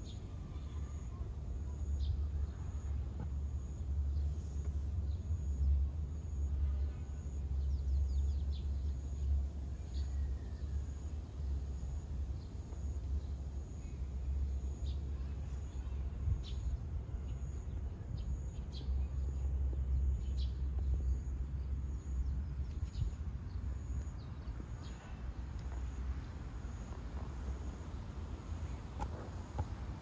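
Outdoor ambience: a steady low rumble with scattered short chirps of small birds.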